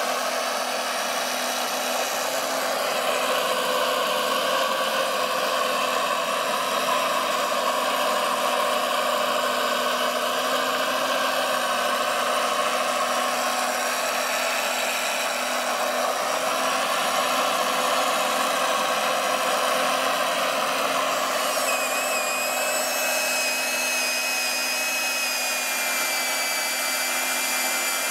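Steady whine of the small electric motors and hydraulic pump of a radio-controlled Liebherr R 956 excavator working its saw head. About three-quarters of the way through, a higher whine joins that wavers in pitch.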